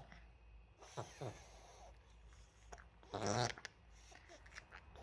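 A Maltese dog's rapid, forceful snorting inhalations through the nose: two faint ones about a second in and a loud one of about half a second a little past three seconds. A vet took these episodes for reverse sneezing, not a seizure.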